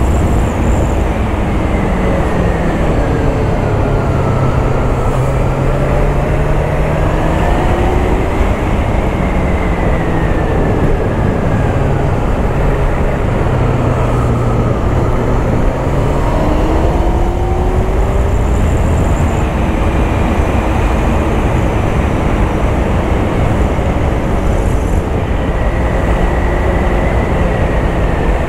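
Honda CBF600's inline four-cylinder engine pulling along on the road, its pitch rising and falling over several seconds as the revs change, under heavy wind rush.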